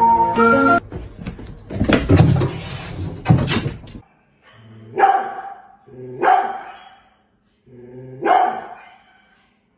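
A dog barking three times, spaced about a second and a half apart, each bark short and separate. Before the barks there is a couple of seconds of noisy clatter.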